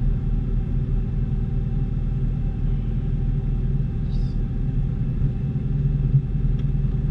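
Peugeot 205 GTI's 1.6-litre four-cylinder engine idling steadily, heard from inside the cabin.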